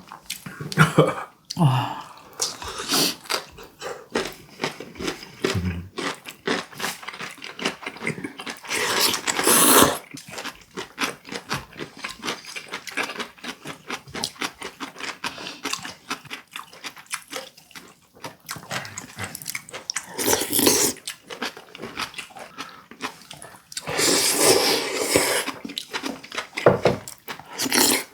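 Close-up eating sounds of rice porridge and duck soup: chewing and slurping, with many short clicks throughout and longer slurps about nine seconds in, around twenty seconds and again around twenty-four seconds.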